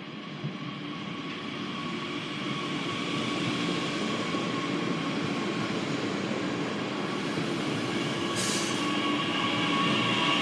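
A regional train running into the station, growing steadily louder, with rail and wheel noise and a steady high whine; a short hiss sounds near the end.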